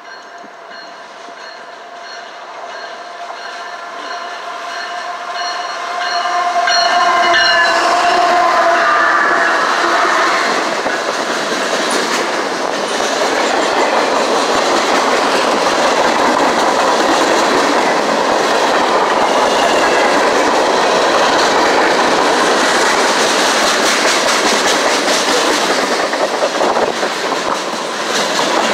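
A diesel-hauled freight train passing close by. The approaching locomotives give a steady pitched tone that grows louder until they pass about seven seconds in. Then a long line of boxcars and covered hoppers rolls past with a steady loud rumble and clattering wheels.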